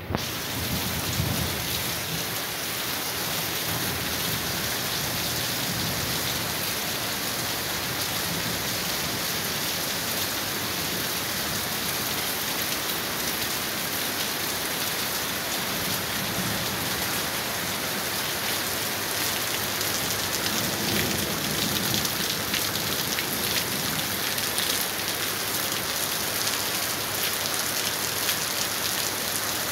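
Heavy rain pouring steadily onto a street, with low thunder rumbling now and then.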